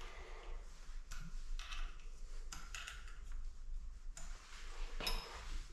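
Scattered light metallic clicks and taps at an irregular pace from hand tools and parts being handled while the cam timing is adjusted on a Rover K-Series engine's vernier cam pulley.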